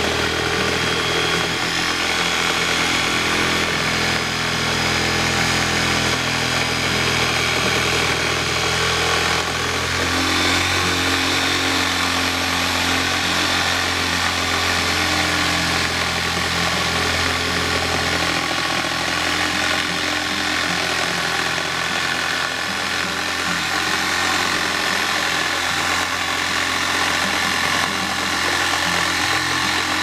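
Corded electric jigsaw running continuously as its blade saws through the rubber of a car tyre. The motor's tones waver and shift as the blade works.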